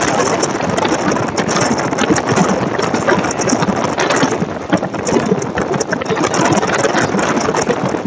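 Loud, steady rush of wind and street traffic picked up by a boAt Airdopes 190 earbud microphone, nearly drowning out a man's speech.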